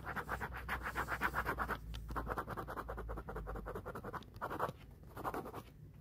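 Stylus tip scratching quickly back and forth across a tablet's glass screen while shading, like a pencil on paper, in runs of fast strokes broken by short pauses.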